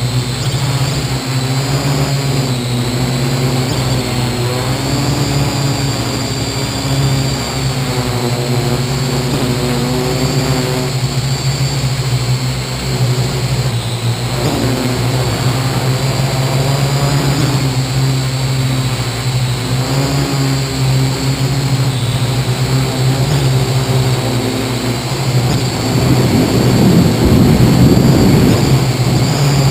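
Parrot AR.Drone 2.0 quadcopter in flight, heard from on board: its four electric motors and propellers make a steady low buzz under a high motor whine that wavers slightly in pitch. Near the end the sound grows louder and rougher for a few seconds.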